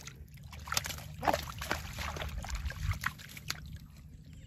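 Hands sloshing and splashing in shallow muddy water in a rice-field channel while groping for fish, with a few short sharp splashes.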